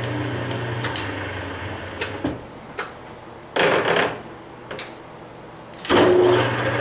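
Webb WL435 gap lathe stepping to another spindle speed. The spindle's low hum fades after a click a little over two seconds in. The headstock gear-change levers are shifted with a loud clunking rattle about halfway through. The spindle starts again with a loud burst near the end, and its steady hum returns.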